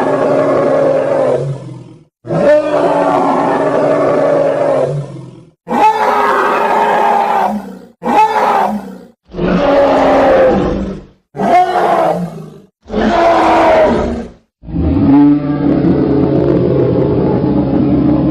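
Platybelodon creature sound effects: a string of about eight separate bellowing animal calls, each one to three seconds long with short gaps between them and pitch bending within each call. Near the end a longer, lower, steadier rumbling call begins.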